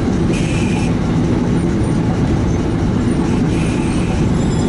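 Old streetcar running on its rails, heard from the driver's cab: a steady loud rumble of motor and wheels, with two brief higher squeals as it takes the curved track, about half a second in and again past three seconds.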